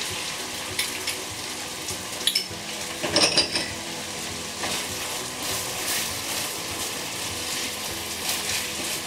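Glutinous rice sizzling in an oiled frying pan as it is stir-fried, a wooden spatula scraping and turning it with many short strokes. A few sharp clinks come between about two and three and a half seconds in.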